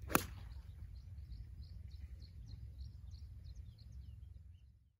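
A golf club strikes the ball on a tee shot with one sharp crack just after the start. After it a small bird chirps repeatedly in short high notes over a low steady rumble.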